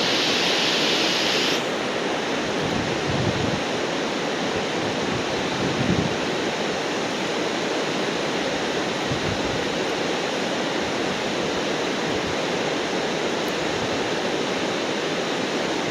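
Waterfall heard from its base: a steady, even rush of falling water. The hiss is brighter for about the first second and a half, then settles, with brief low buffets of wind on the microphone now and then.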